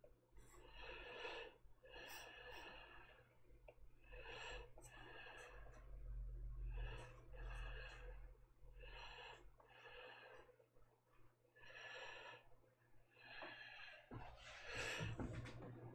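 Faint human breathing, a run of soft in-and-out breaths every second or two, over a steady low hum.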